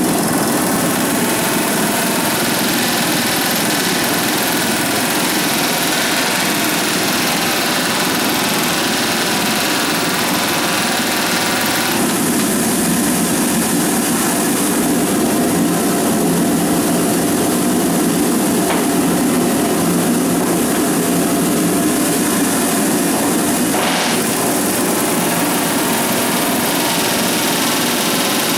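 Pneumatic rivet guns rattling steadily as they drive hot steel rivets into a new hull plate of a riveted Liberty ship's steel hull.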